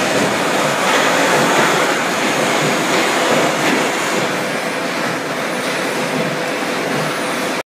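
Steady mechanical running noise of paper-cup factory machinery, with an SM1080 blanking machine running, under a faint steady hum. It cuts off suddenly near the end.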